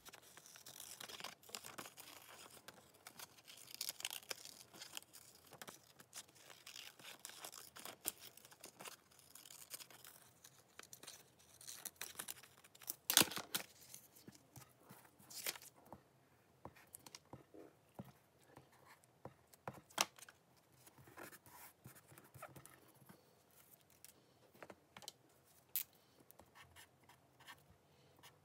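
Scissors cutting and hands tearing a glossy magazine page, with paper rustling as the torn pieces are handled and laid down. The busiest part is the first half, with one loud tear or crumple about halfway through. Near the end a felt-tip marker scratches as it writes on paper.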